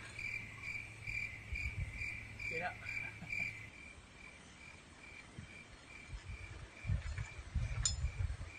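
An insect chirping in a steady pulsed rhythm, about three high chirps a second. Low rumbles and knocks come through, strongest near the end.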